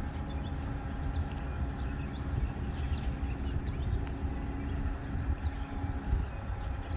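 Freight train rolling past, a steady low rumble of wheels on rail with faint high chirps over it.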